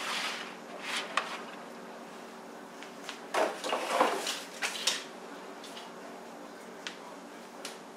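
Sliced andouille sausage tipped off a flexible plastic cutting board onto a metal sheet pan, with short clatters and knocks at the start and a cluster of them about three to five seconds in. A steady low hum sits underneath.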